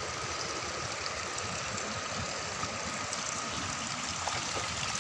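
Water from a tiny waterfall running steadily over rocks.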